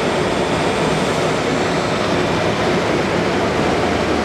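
Steady, unbroken whirring machine noise, a constant even hum and hiss without knocks or changes.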